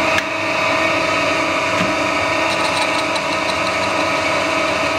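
Metal lathe running steadily with a fixed whine from its drive and gearing, power-feeding the tool lengthwise along a spinning UHMW polyethylene rod cut dry without coolant. A light rapid ticking joins in about halfway through.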